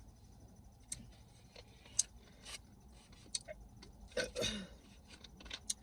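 Close-miked eating sounds from chewing a taco: a scatter of wet mouth clicks and smacks, with a short vocal sound about four seconds in.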